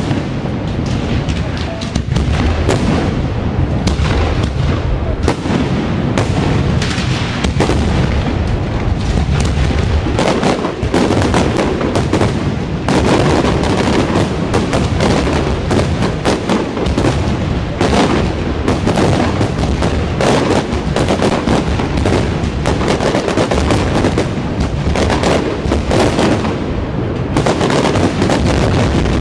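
Fireworks display at full intensity: a dense, unbroken barrage of booming shell bursts and sharp cracks, many reports a second.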